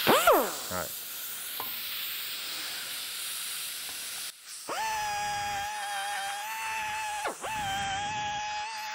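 Die grinder porting the exhaust ports of a cast-iron Pontiac 6X cylinder head. It opens with a falling spin-down and a few seconds of hiss, then after a short break runs with a steady high whine as the burr cuts in the port. The whine drops off briefly once and picks straight back up.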